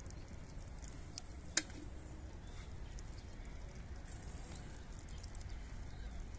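A steady low rumble with faint scattered ticks, and one sharp click about a second and a half in.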